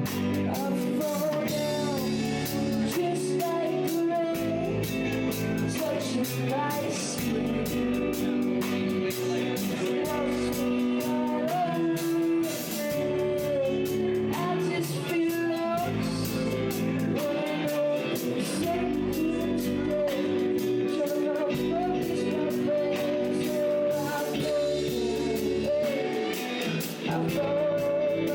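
Band music with a singer, guitars, bass and drums, playing steadily throughout.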